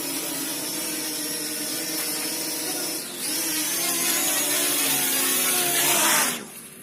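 Parrot Anafi quadcopter's electric motors and propellers whirring: a steady whine of several slightly wavering tones over a hiss, which cuts off suddenly about six seconds in.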